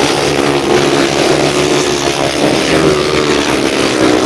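Several solo grasstrack racing motorcycles running hard round the track, their engine notes overlapping and rising and falling a little in pitch.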